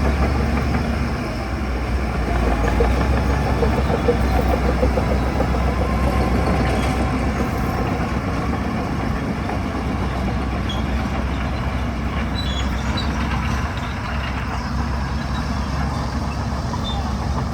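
Heavy diesel engine of earthmoving machinery, a bulldozer or dump truck, running steadily with a deep, continuous rumble.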